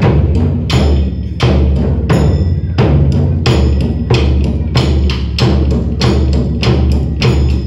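Drums beaten in a steady rhythm of about two to three strokes a second. Each stroke is sharp and ringing, over a continuous low boom.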